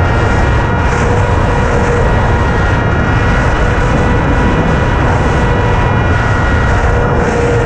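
Small FPV drone's electric motors and propellers whining steadily, several held tones over a heavy low rush of wind, picked up by its onboard camera.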